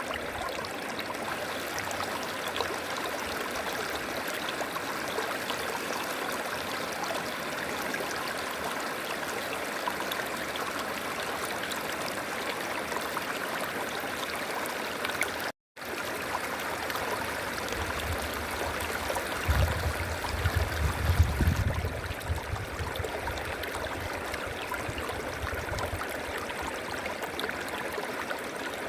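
River water flowing and rushing steadily. The sound cuts out for a split second about halfway through, and a low rumble rises under the water sound a little past the middle, then fades a few seconds later.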